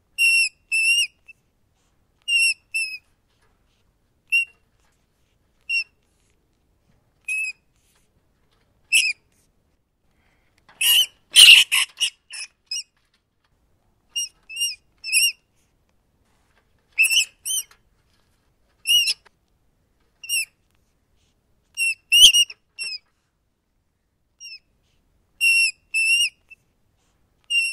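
Rat squeaking: short, high squeaks, singly or in quick pairs every second or two, with a longer, louder run of squeals about eleven seconds in.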